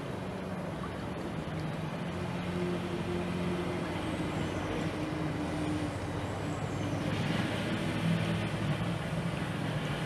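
Rainforest ambience: a steady rushing hiss with a low droning hum underneath, the hiss growing a little louder about seven seconds in.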